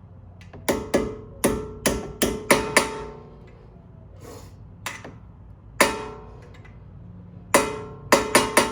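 Hammer striking metal to drive a brake-pad retaining pin into a brake caliper, each blow ringing briefly. There is a run of about seven blows, then two single blows, then a quick run near the end.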